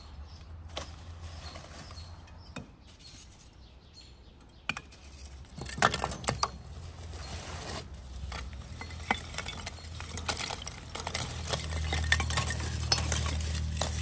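Metal cooking utensils clinking and scraping against dishes and pots: scattered sharp strikes, a quick cluster about six seconds in, then a busier run of clinks through the second half.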